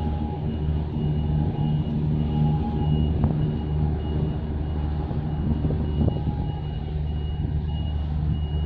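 Steady low engine drone, with a thin high electronic beep repeating in short pulses over it.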